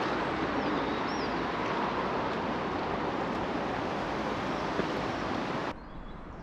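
Steady rush of running water in a stone spillway channel, with faint bird chirps over it. It cuts off suddenly near the end, leaving a much quieter outdoor background.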